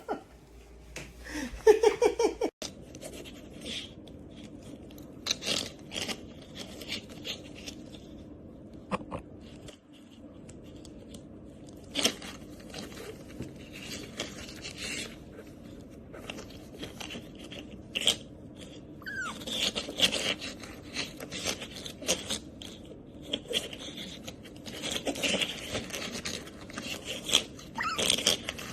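Pet otter playing: scattered scraping, clicking and rustling of its toys and claws, with a few short high squeaks.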